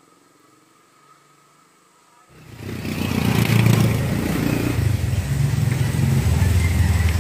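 Faint at first, then about two seconds in, loud, steady motorcycle engine noise starts abruptly and runs on, with a strong low drone.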